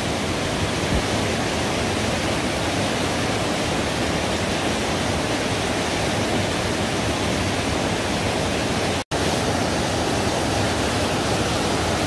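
Steady, even rush of water from a two-tier waterfall and the rocky stream below it, broken by a momentary gap about nine seconds in.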